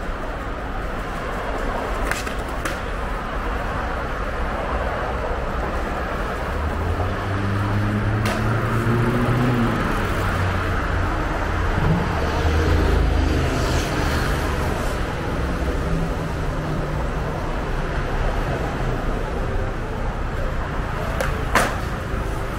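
City street traffic: a steady wash of road noise, with a motor vehicle's engine passing close by through the middle and falling in pitch as it goes. A few sharp clicks or knocks stand out, one near the end.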